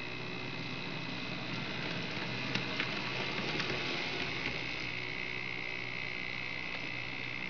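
N-scale model locomotive running on pulse-width-modulated track power, its motor giving a steady high-pitched whine over a low hum, with a few light clicks near the middle.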